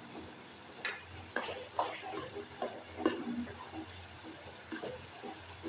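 Metal fork tapping and scraping against the pan while stirring wet instant noodles, a string of irregular sharp clicks about every half second to a second.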